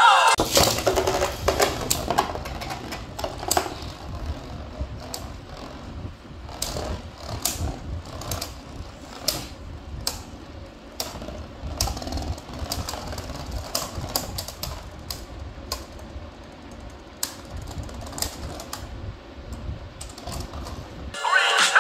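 Two Beyblade spinning tops whirring in a plastic stadium bowl: a low steady rumble of their tips on the plastic, broken by irregular sharp clacks as they knock into each other and the bowl.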